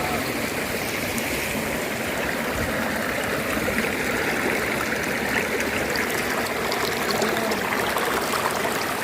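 Steady rushing of a waterfall and its stream.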